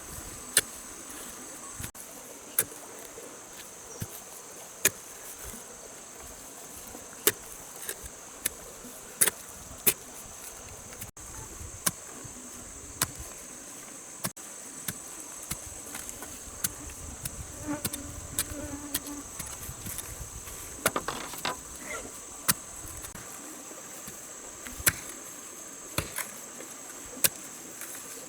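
Steady high-pitched chorus of rainforest insects, with sharp knocks at irregular intervals every second or two.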